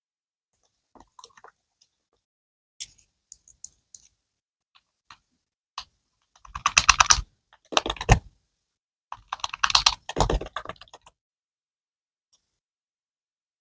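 Slime being pressed and squished by hand, giving sharp clicks and crackling pops: a few scattered clicks at first, then three dense bursts of crackling in the second half.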